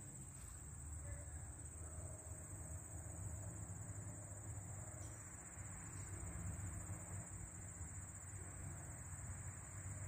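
A steady, high-pitched insect chorus trilling without a break, over a low rumble of wind on the microphone.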